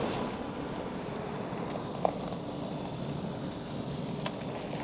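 Steady low background noise with a couple of light clicks, one about two seconds in and another near the end.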